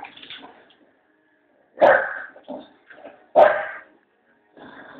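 Two loud, short dog-like barks about a second and a half apart, each cutting in suddenly and dying away fast, with fainter chatter around them.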